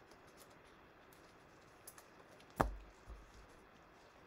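Trading cards and a card pack being handled with gloved hands: faint scattered clicks and light rustles, with one sharp tap about two and a half seconds in.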